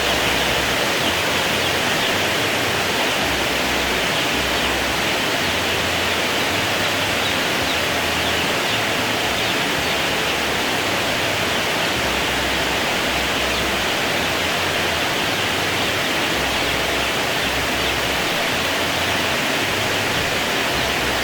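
Rain falling on the roof: a loud, steady hiss.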